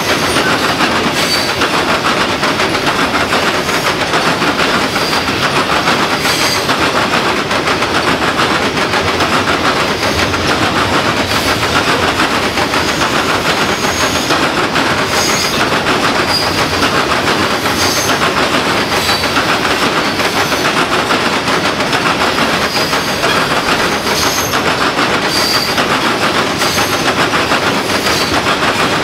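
Loaded coal hopper cars rolling past, their steel wheels clattering steadily over the rail joints. Short high squeals come and go now and then.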